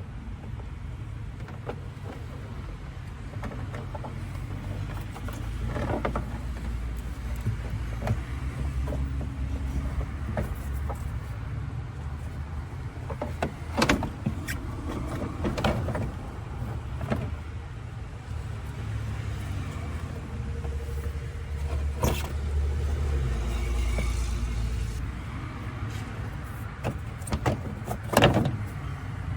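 A few sharp knocks and clunks of metal parts being handled and fitted in an engine bay, the loudest near the end, over a steady low rumble.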